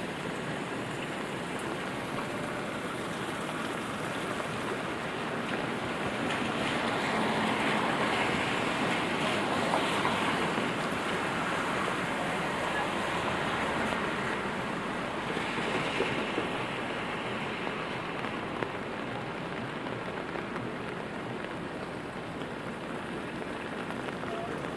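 Steady rain falling on a city street, with wet-road tyre hiss from traffic swelling louder twice as vehicles go by.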